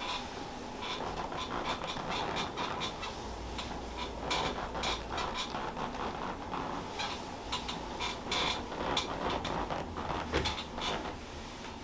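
A string of irregular light clicks, taps and creaks, without a steady rhythm.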